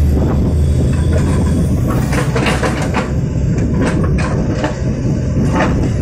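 Heavy diesel engines of a working excavator and passing trucks running. A deep low rumble fades about half a second in, and from about two seconds in there are scattered clunks and rattles.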